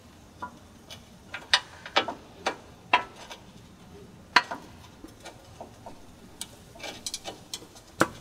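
Hand tools working a seized bumper fastener on a 1988 Toyota Land Cruiser FJ62: about a dozen sharp, irregularly spaced clicks and taps.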